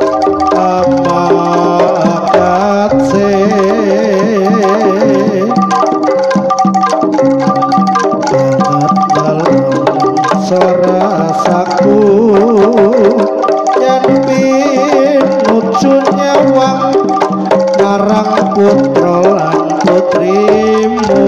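Live Javanese jaranan music played loud through a PA sound system: kendang hand drums keep a busy rhythm under gamelan-style melodic instruments, with a wavering lead melody line that comes and goes.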